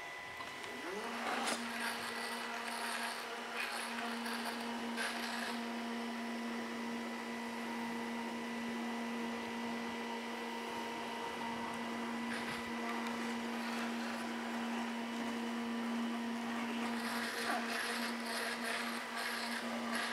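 Festool KA 65 Conturo edge bander running steadily as a shaped board is fed past its pressure roller to apply the edging. Its hum comes in with a short rising whine about a second in, with scratchier stretches near the start and again near the end.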